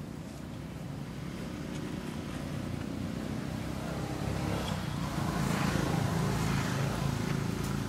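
Low, steady engine noise of a motor vehicle, growing louder and loudest about six seconds in.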